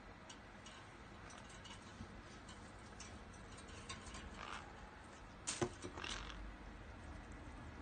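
Green-cheeked conure nibbling a chunk of apple: faint, scattered small clicks and crunches of its beak biting into the fruit, with one sharper click a little past halfway.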